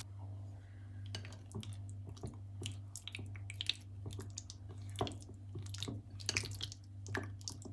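Silicone spatula mixing chunks of chicken in a thick marinade in a glass bowl: irregular wet squelches and small clicks.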